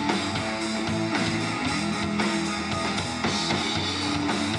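Rock band playing live: electric guitar, bass guitar and drum kit, with drum hits at a steady beat.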